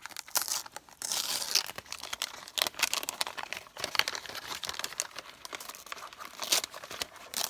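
Gift wrapping crinkling and tearing as a small package is pulled open by hand, in dense, irregular crackles and rustles.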